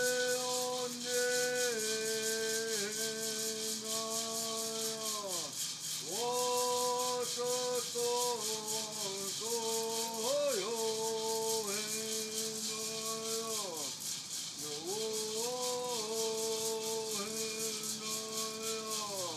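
A man singing a Native American song in three long held phrases, each falling away at its end, over a hand rattle shaken steadily throughout.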